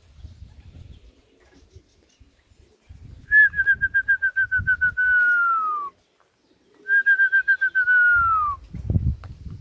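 A whistle blown twice, each time a fast trill that settles into a long note sliding down in pitch: a pigeon fancier's whistle calling racing pigeons down to the loft. A low thump comes near the end.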